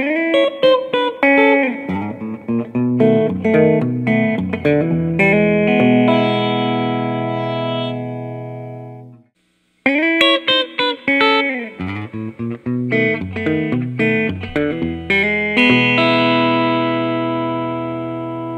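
Electric guitar played through a guitar amp, in two short blues-style phrases: a run of picked single notes with string bends, ending on a chord left ringing. The first phrase is played through a Fender GT-40 modeling amp and the second, after a short gap about nine seconds in, through a Fender Blues Junior.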